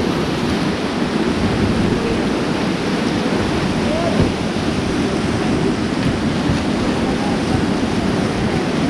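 Whitewater rapids rushing steadily around an inflatable river raft, with wind buffeting the microphone.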